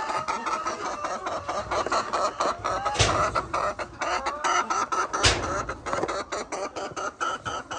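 Chickens clucking and calling all around, with small clicks throughout and two sharp knocks, about three and five seconds in.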